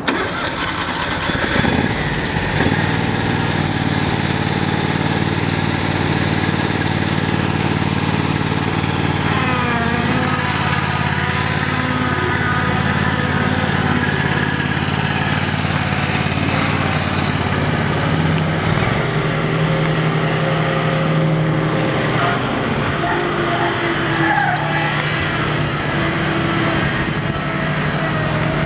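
The 31 hp Kawasaki V-twin engine of a Gravely Pro-Turn 472 zero-turn mower runs steadily as the mower is driven. Its pitch dips briefly and comes back up about ten seconds in, and its tone shifts a little before twenty seconds.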